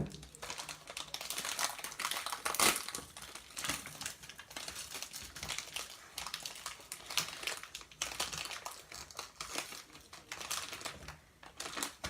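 Hands kneading and pulling Model Magic clay into butter slime, making irregular crinkling crackles and small sticky clicks.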